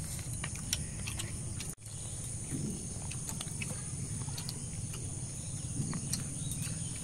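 Steady, high-pitched insect chorus over a low outdoor rumble, with scattered soft clicks; the sound breaks off for an instant about two seconds in.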